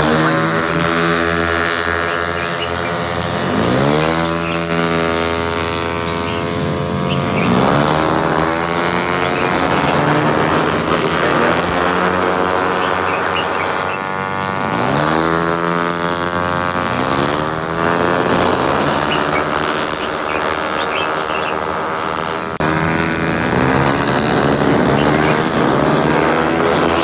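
Racing car engines running hard, the pitch rising sharply and then levelling off every few seconds as the cars accelerate through the gears and along the track.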